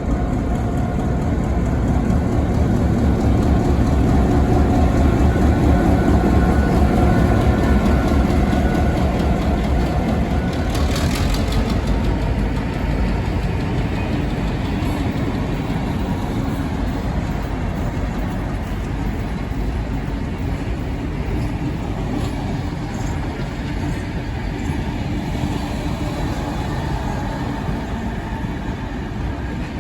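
Steam-hauled passenger train running, a loud, dense, steady rumble that eases slightly after about ten seconds, with a brief hiss about eleven seconds in.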